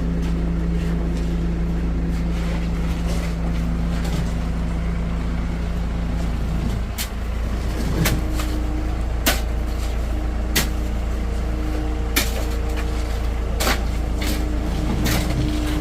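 An engine running steadily. From about halfway through, sharp knocks come roughly every second and a half.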